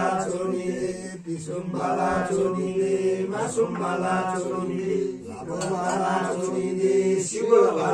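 Voices chanting in long, drawn-out phrases over a steady held pitch. There are brief breaks about a second in and about five seconds in.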